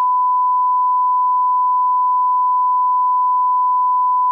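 Line-up test tone played with colour bars: one pure, steady pitch held without change.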